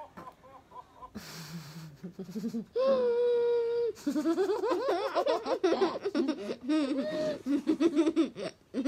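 Laughter and playful voices, with one long held vocal note about three seconds in.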